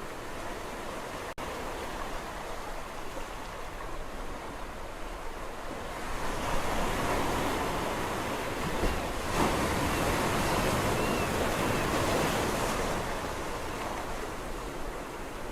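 Sea waves washing on the shore in a steady hiss of surf. About six seconds in a bigger wave swells up and breaks, then washes back and eases off near the end. There is a split-second gap just over a second in.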